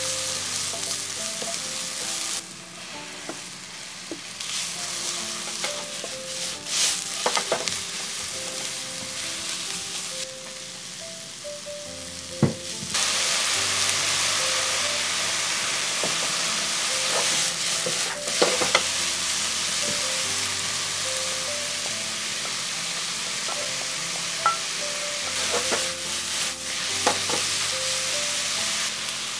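Onions and green onions stir-fried in a wok: steady sizzling, with a wooden spatula scraping and tapping against the pan now and then. The sizzle gets louder about halfway through.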